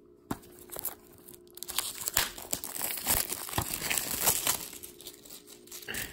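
Clear plastic shrink wrap being torn and crumpled off a DVD case: dense crinkling and crackling, busiest from about two seconds in, after a single sharp click at the start.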